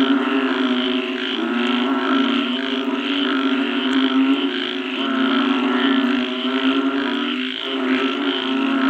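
Chorus of many frogs calling together after rain: a continuous low drone with rapid, repeating pulsed calls layered over it.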